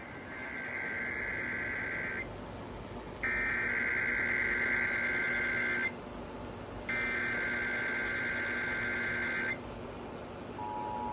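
Emergency Alert System test tones: three bursts of the SAME header's screechy digital data tone, each about two and a half seconds long with a second's pause between. Near the end the steady two-tone attention signal begins.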